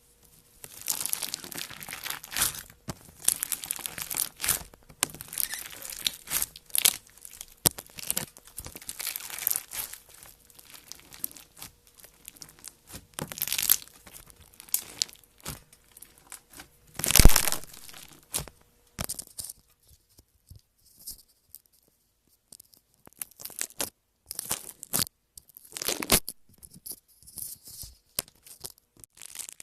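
Slime mixed with Orbeez water beads being handled and squeezed, giving irregular bursts of crisp noise with short pauses. The loudest burst comes about seventeen seconds in, and the bursts thin out over the last third.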